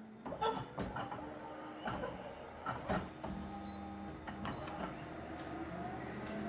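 Photocopier starting an enlarged copy: a run of mechanical clicks and clunks, then a steady motor hum with a whine that rises in pitch from about five and a half seconds in.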